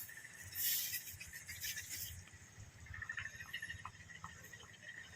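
A dog panting, two breathy puffs in the first two seconds, followed by faint high chirping and scattered ticks.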